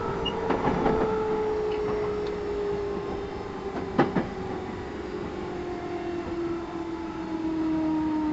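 Running sound inside the motor car of a JR 211 series 5000 electric train: the motor whine glides steadily down in pitch as the train slows, over rail noise, with a few clicks about a second in and a single sharp knock about four seconds in.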